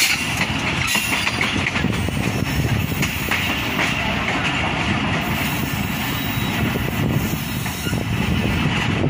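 Express passenger train running along the track, heard from an open window of one of its coaches: a steady rumble of wheels on rail with occasional clicks as the wheels cross rail joints and points.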